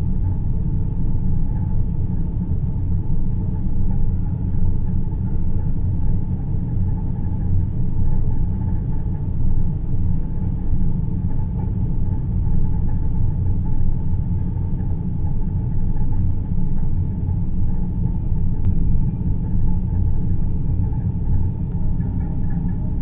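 Deep space-ambience soundscape: a steady, low rumbling noise bed with faint hums above it, unchanging throughout.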